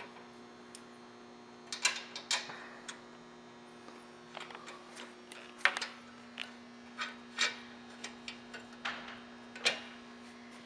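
Light metal clicks and knocks, a dozen or so at irregular intervals, as nuts and bolts are hand-tightened and metal mounting brackets are handled against a TV lift's metal column. A steady electrical hum runs underneath.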